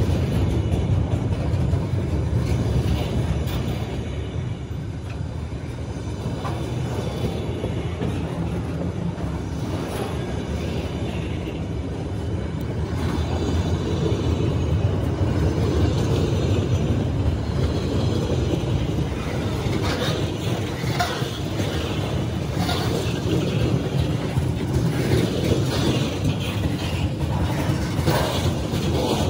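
Freight train cars rolling past: a steady low rumble of steel wheels on the rails, with clicking and clacking over the rail joints that grows busier in the last third.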